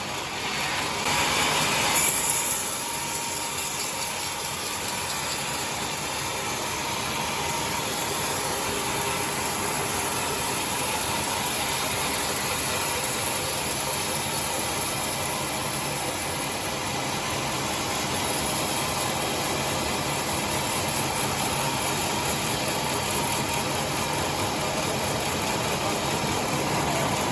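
Sawmill machinery running steadily, with a louder, brighter stretch of about two seconds near the start.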